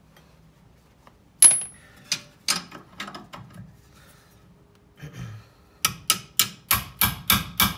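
Metal tools clink, one with a short bright ring about a second and a half in. From about six seconds in a hammer taps rapidly, about four strikes a second, on a box-end wrench fitted to a suspension ball joint nut, using impact to break the nut loose.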